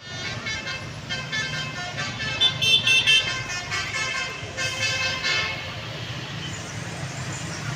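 Telolet horn of a Tunggal Jaya bus playing a quick tune of short, stepping notes, loudest about two and a half to three seconds in and trailing off after about five seconds, over the bus's low, steady engine running.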